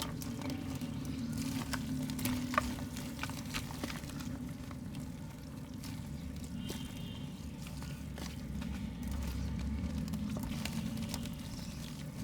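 Soft wet mud being crumbled by hand: scattered small crackles and wet patters over a steady low hum.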